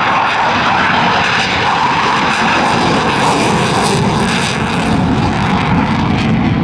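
Jet noise from a Eurofighter Typhoon's twin turbofan engines as the fighter flies its display: a loud, steady rushing sound.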